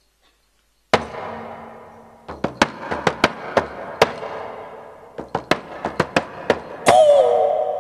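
Shaman's hide frame drum struck by hand: one loud beat with a ringing tail about a second in, then a run of sharp beats about three a second from about two seconds in. Near the end a wavering vocal cry comes in over the drumming.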